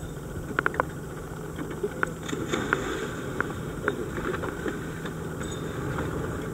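Small dive boat's engine idling steadily, with scattered light clicks and knocks from scuba gear as divers roll off the side.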